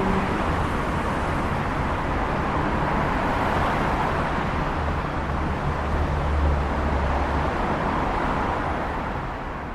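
A car driving: steady road noise with a low engine hum, easing off slightly near the end.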